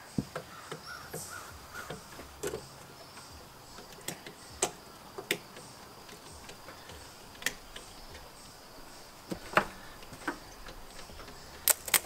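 Scattered sharp clicks and snaps, a few seconds apart with a quick pair near the end, as a small engine's ignition is worked with the key to check for spark.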